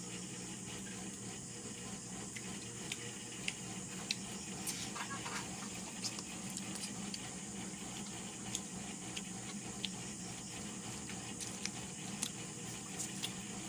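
Scattered sharp clicks and light knocks of eating, about a dozen spread irregularly, over a steady hiss and low hum.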